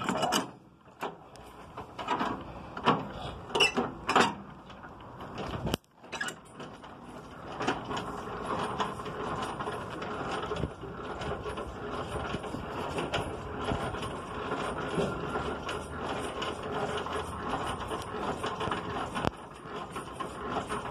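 Semi-trailer landing gear being hand-cranked, its gearbox clicking in a steady run of fast clicks. The first few seconds hold scattered knocks and clanks before the steady cranking settles in, about seven seconds in.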